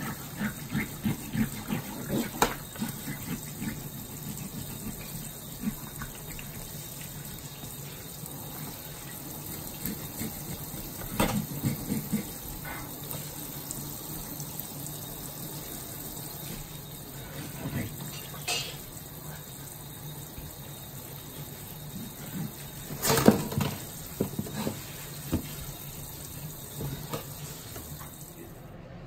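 Kitchen faucet spray running steadily into a stainless-steel sink as black bass are rinsed, with scattered knocks and clatters of the fish and gloved hands against the sink; the loudest clatter comes about three-quarters of the way through.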